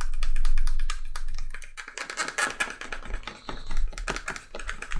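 A grooved wooden hand burnisher rubbed quickly back and forth along the edge of a leather holster coated with gum tragacanth, giving a fast run of rubbing strokes. The sound of the friction marks the burnishing compound growing sticky as it nearly dries and starts to work, the stage where the edge turns smooth and glossy.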